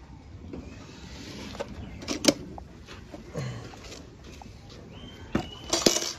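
Steel milk pail being handled: sharp metallic clinks and knocks from its wire handle and rim, ending in a loud clatter as the full pail is set down on the brick floor.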